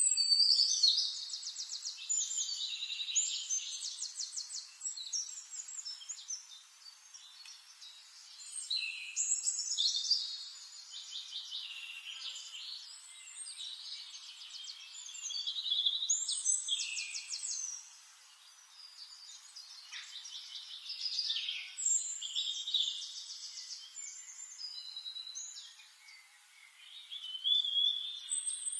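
Songbirds singing: high, fast-trilled phrases a few seconds long, coming again every several seconds with quieter gaps between.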